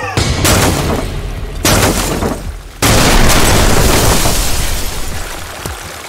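Three booming cinematic hits, a second or so apart, each followed by a long fading rumble; the third is the loudest and dies away over a few seconds.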